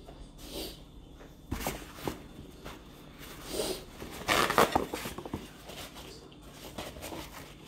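Scattered handling noises: a few soft clicks and knocks and the rustle of a paper towel being pulled out and unfolded, the loudest bout about halfway through.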